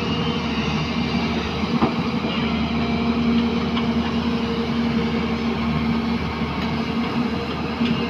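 Hyundai crawler excavator's diesel engine running steadily under load, with a steady hum, as its bucket digs into a soil pile; a single sharp knock about two seconds in.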